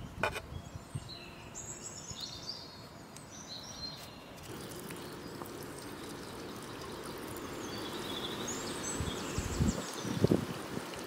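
Small birds chirping over a steady outdoor hiss, with a sharp click just after the start and a few dull thumps near the end.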